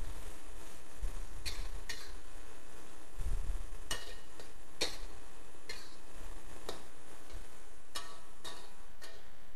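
Metal wok ladle scraping and clinking against a wok as baby corn and Chinese broccoli are stir-fried in a cornstarch-thickened sauce, with sharp clinks coming irregularly about once a second. A steady low rumble runs underneath.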